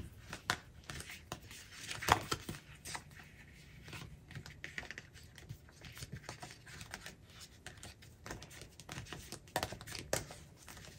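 Paper handling: a sticker book's pages being leafed through, with rustling, crinkling and scattered light clicks and taps, a few sharper ones standing out.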